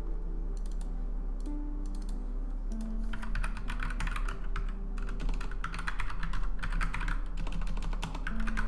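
Typing on a computer keyboard: rapid keystrokes in a few bursts from about three seconds in, over quiet background music.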